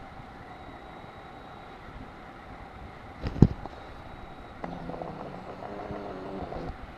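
Steady background hiss, broken by one loud knock about three and a half seconds in, then a low steady hum with overtones for about two seconds near the end.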